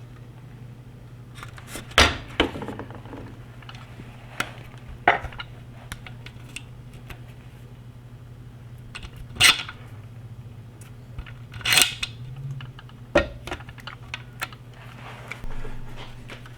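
Scattered sharp metallic clicks and clinks, about eight spread irregularly over the stretch, from handling a freshly reassembled Mosin-Nagant bolt-action rifle, over a steady low hum.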